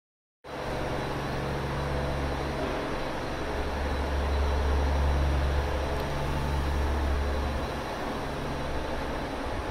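Railway station platform ambience: a steady low mechanical hum and rumble, swelling slightly midway.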